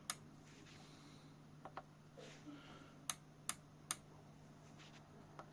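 Buttons on a President Grant II Premium CB radio's front panel being pressed, giving a series of short sharp clicks, three of them evenly spaced about three seconds in, over a steady low hum.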